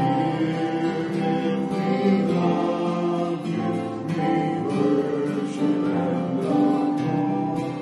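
Acoustic guitar strumming with voices singing a hymn.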